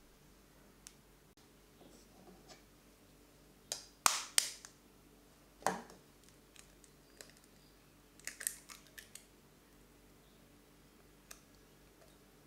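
Eggshell cracking as eggs are broken open and separated over a glass mixing bowl: a few sharp cracks about four seconds in, a duller knock just after, then a quick cluster of small crackles around eight seconds in, with faint clicks between.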